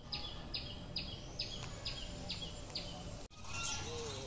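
A bird calling over and over, about two short downward-sliding notes a second, against steady outdoor background noise. The calls break off suddenly about three seconds in, and other fainter bird chirps follow.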